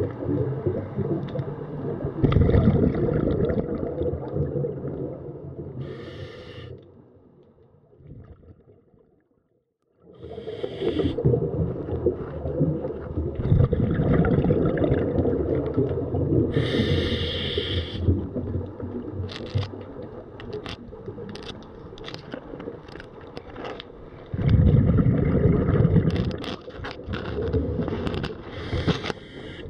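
Underwater sound through a diver's camera: a muffled rush and rumble of moving water, with a few short hissing bursts and scattered clicks and scrapes in the second half. The sound drops out briefly about nine seconds in.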